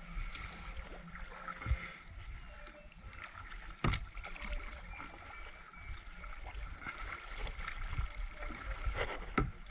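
Kayak paddle dipping and pulling through water as a sit-on-top kayak moves along, with a few sharp knocks, the loudest about four seconds in and another near the end.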